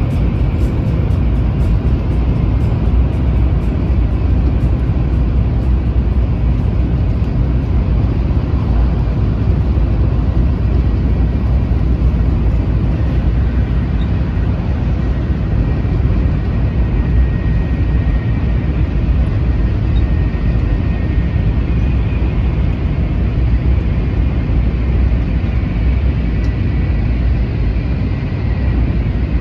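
Steady low rumble of a Taiwan High Speed Rail train running at speed, heard from inside the passenger cabin.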